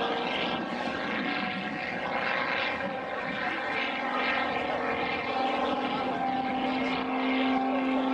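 Single-engine propeller aerobatic plane droning overhead. From about halfway the engine note turns steady and grows louder as the plane pulls up into a steep climb.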